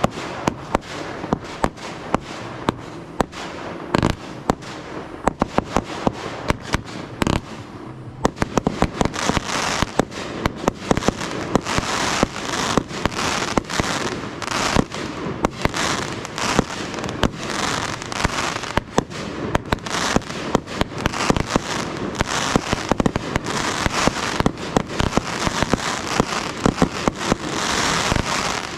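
Fireworks display: a quick run of sharp bangs with crackling between them. About eight seconds in it grows denser and louder, into near-continuous crackle and hiss packed with bangs.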